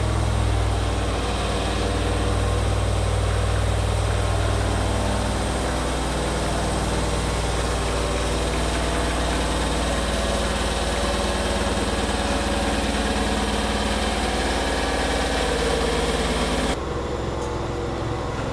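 Caterpillar forklift engine running steadily while the forks lift. The engine note shifts about six seconds in, and the sound drops away abruptly near the end.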